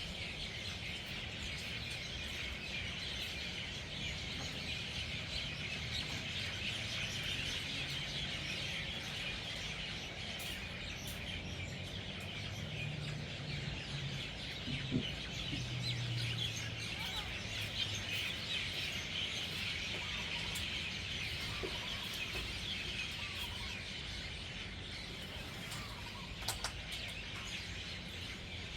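A large flock of birds gathering at an evening roost, hundreds of birds chattering and chirping at once in a dense, continuous chorus.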